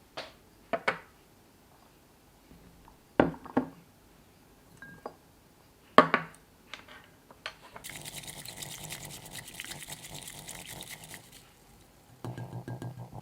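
Several sharp clinks and knocks of dishware or glass, then a stretch of water running or pouring for about three and a half seconds, and a short low buzz near the end.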